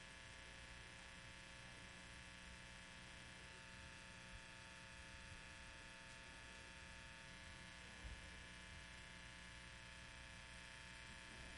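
Near silence, with a steady electrical hum or buzz in the background and a faint thump about eight seconds in.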